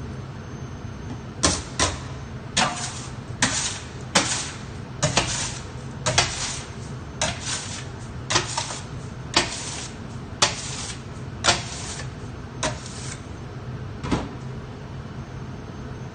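Gas burner of a commercial bakery oven running with a steady rushing hum, overlaid by a run of about fifteen sharp clanks and knocks at irregular intervals from about a second and a half in until about fourteen seconds in.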